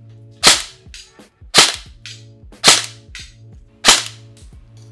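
Krytac Trident MK2 airsoft electric gun (AEG) firing single semi-automatic shots, four sharp cracks about a second apart, each with a short ringing tail, and a fifth just at the end.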